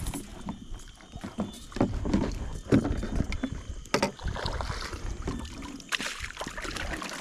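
Water sloshing and splashing, with irregular knocks and bumps, as someone moves about in the water while slingshot fishing.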